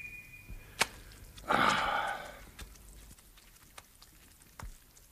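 A high, held magic tone ends in a click, then about a second and a half in comes a short gush of water that fades, followed by a few faint drips. These are sound effects for a wish to be washed warm coming true.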